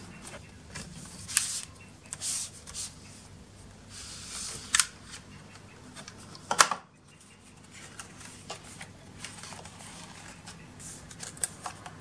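Paperboard packaging being handled: the sport band's sleeves sliding and rustling, with scattered taps and clicks, the sharpest about six and a half seconds in.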